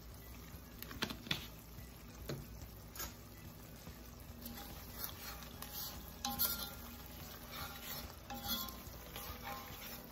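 Sliced onions with spices frying quietly in an enamelled Dutch oven while a metal spoon stirs them, scraping and tapping against the pot now and then.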